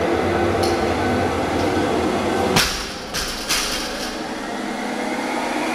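A barbell with bumper plates hits the rubber gym floor about two and a half seconds in: one loud thud with ringing after it, then two smaller knocks as it settles.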